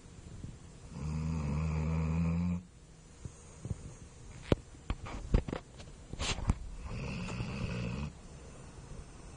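Dog snoring in its sleep: two long snores, the first about a second and a half and the second about a second, with a few sharp clicks in between.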